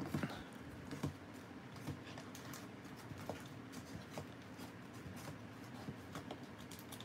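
Wax-paper packs of 1989 Donruss baseball cards being pulled from a cardboard box and set down in a stack: faint rustling with light taps, a few sharper ones in the first two seconds.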